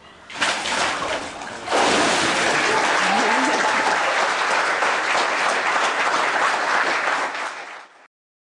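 Water splashing in a baptistry as a person is lowered under and lifted out. Then a congregation breaks into steady applause with some voices calling out, until it cuts off suddenly near the end.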